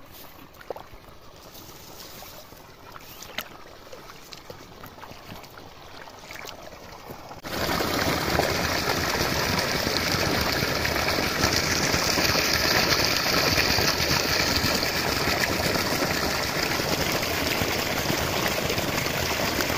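Irrigation water trickling along a shallow earth field channel, then, about seven and a half seconds in, an abrupt change to loud, steady gushing of pump-fed water pouring from a pipe outlet into the channel.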